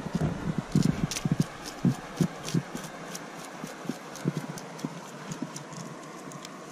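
Knife cleaning a freshly caught grayling: a run of irregular knocks and sharp scrapes, dense in the first three seconds, then sparser.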